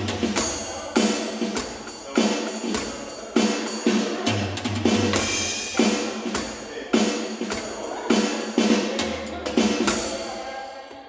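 Artesia Legacy Pro A50 electronic drum kit played through its sound module in a steady groove. Regular accented kick-and-cymbal crashes come about every second, with busier hits in between, and the kit ends on a cymbal that rings out and fades near the end.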